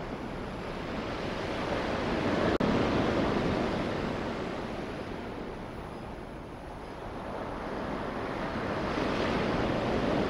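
Ocean surf breaking on the beach, rising and falling in two long surges about seven seconds apart.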